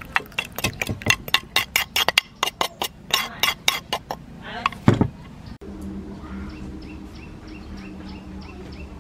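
A metal spoon clinks and scrapes against a clay mortar and a ceramic bowl as chili sauce is scraped out: a rapid run of sharp clinks for about four seconds, then one heavy knock. After that comes a steady low hum outdoors, with a faint high tick repeating about twice a second.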